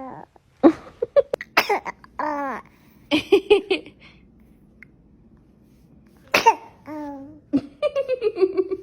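A baby sneezing several times in short, sharp bursts, with high-pitched baby squeals and coos between the sneezes.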